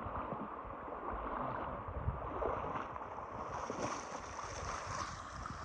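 Shallow river water rushing and splashing as a steady wash of noise that gains a brighter hiss about halfway through, with wind rumbling on the microphone.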